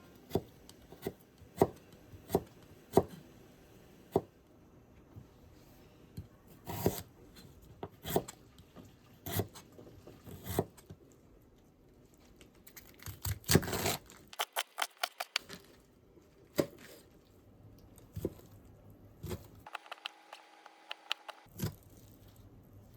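Kitchen knife chopping vegetables on a cutting board: separate chops at first, then a quick run of about eight chops a second around two-thirds of the way through.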